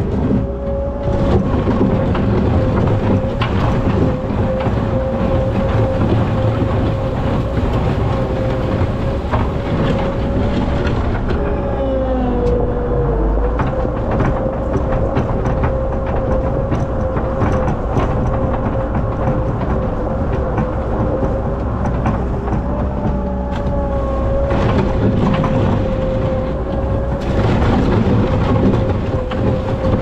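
Skid steer loader's engine running steadily with a constant whine, its pitch sagging briefly under load about twelve seconds in and again near twenty-four seconds. Frequent clicks and rattles come from the bucket being worked over the stone lot to level out stones torn up by loading hay.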